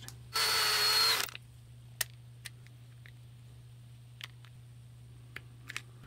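A power tool's electric motor runs for about a second with a steady whine, then a few faint light clicks of small metal parts being handled on the dimmer switch.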